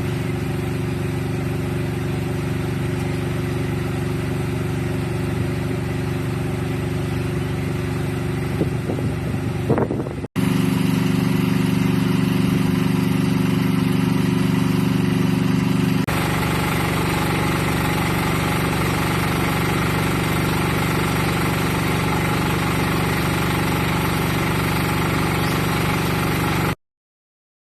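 An engine running steadily, heard in three stretches with abrupt cuts about ten and sixteen seconds in.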